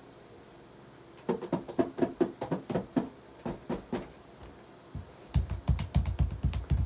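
A quick run of sharp taps, about five a second, for nearly three seconds, then after a short pause a denser flurry of heavy low thumps with clicks on top that stops suddenly.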